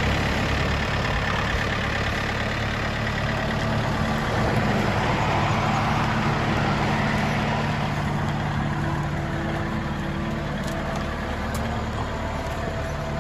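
Excavator engine running steadily.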